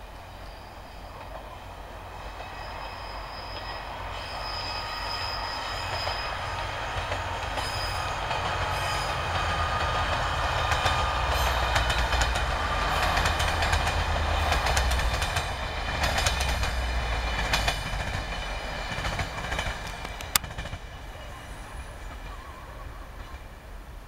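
Two coupled HŽ 7121 series diesel multiple units passing: a low engine rumble and a high whine grow louder as the train approaches and peak about halfway through. A rapid run of wheel clicks over the rail joints comes as the coaches go by, and then the sound fades as the train moves away.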